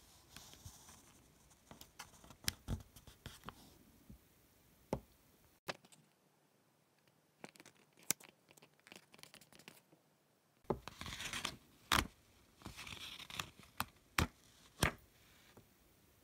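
Small paper and sticker handling sounds on a diary page: sticker peeling and paper rustling with light sharp taps. Busy at the start and again from about two-thirds in, with a quieter stretch between.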